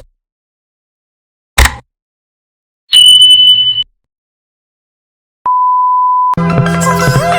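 Edited sequence of short electronic beeps against dead silence: a brief burst, then a high steady beep for under a second, then a lower steady bleep like a censor tone, before music with a melody starts near the end.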